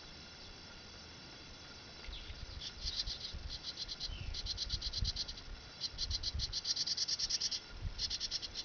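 House wren chipping in rapid trains of sharp, high chip notes, about ten a second, in five bursts beginning about two and a half seconds in.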